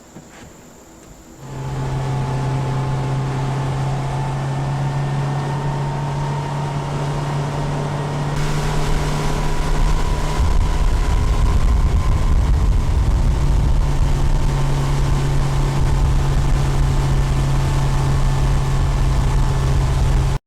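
Boat's outboard motor starting up suddenly about a second and a half in and running steadily under way, with a rushing noise of water and wind growing louder about eight to ten seconds in.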